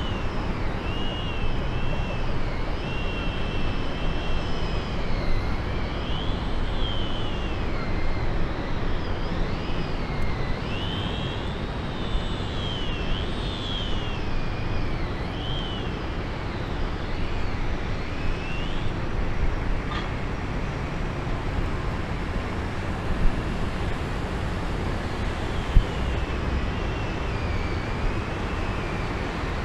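Pilot boat's engine running at slow harbour speed, a steady low rumble. High wavering chirps sound over it for the first two-thirds, and two short sharp clicks come near the end.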